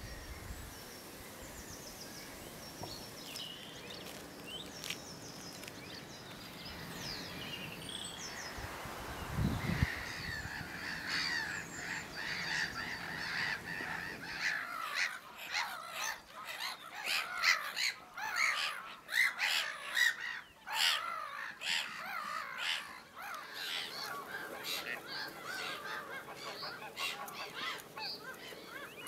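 Faint songbird chirps, then from about halfway a flock of waterbirds calling: many short, overlapping calls. A single low thump about a third of the way in is the loudest moment.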